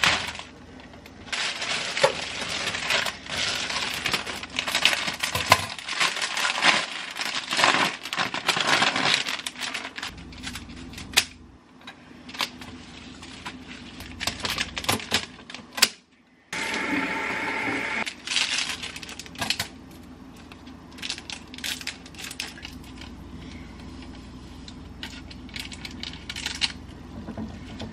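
Clear plastic cellophane bouquet wrap crinkling as it is handled and pulled open, followed by scissors snipping through flower stems in sharp, scattered clicks. A steady rushing noise of unclear source runs for about two seconds just past the middle.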